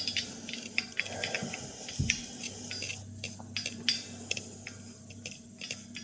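Irregular light clicks and taps as FEU-85 photomultiplier tubes are turned by hand, their metal-and-glass bodies and base pins knocking against each other. A faint steady low hum runs underneath.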